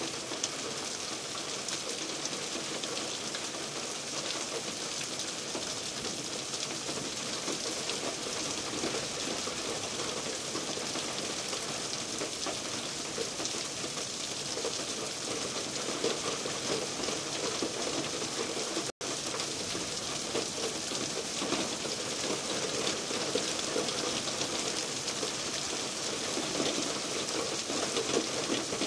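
Heavy rain falling steadily, an even hiss with no change in strength. The sound cuts out for an instant about two-thirds of the way through.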